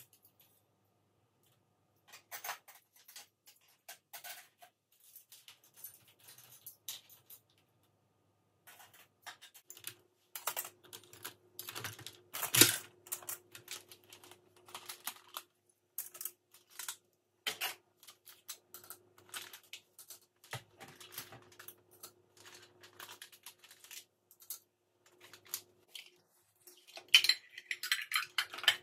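Irregular clicks, taps and clatter of dishes and kitchen items being handled during a kitchen clean-up, with one louder knock partway through. A faint steady hum comes in about a third of the way in, and a short rush of noise follows near the end.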